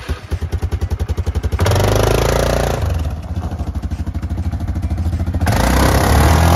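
Yamaha Grizzly 4x4 ATV's single-cylinder engine running with a fast, even low pulse, then accelerating with a rush of tyre noise on gravel about a second and a half in, and again near the end.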